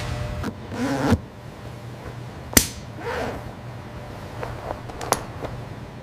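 Leather and hand tools being handled on a workbench: a rustling swish at the start, a single sharp snap about two and a half seconds in, then a few lighter clicks and taps.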